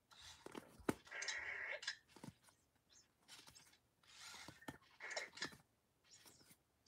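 Faint, soft rustles and flicks of Pokémon trading cards being slid one by one from the front of a freshly opened pack to the back, in several short bursts.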